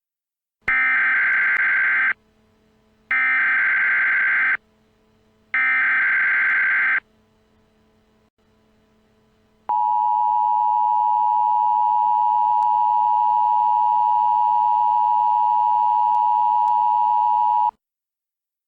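Emergency Alert System alert signal: three short bursts of buzzing digital SAME header data about a second apart, then the two-tone attention signal, a steady two-note tone held for about eight seconds that cuts off suddenly.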